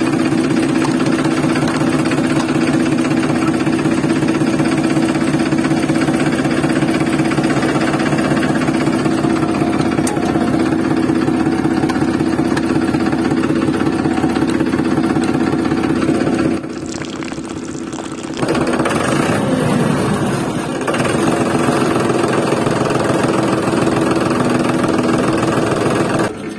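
A motor running steadily with an even, low hum. It drops away for about two seconds about two-thirds of the way through, then resumes.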